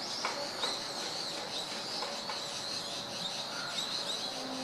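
Natural ambience of small birds chirping over a steady high-pitched trill, with a few soft clicks.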